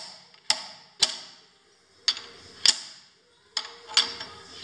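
Slide hammer knocking the rear spindle bearing's outer race out of an LT-10M lathe headstock: a run of sharp metallic knocks, irregularly spaced, roughly half a second to a second apart, each ringing briefly.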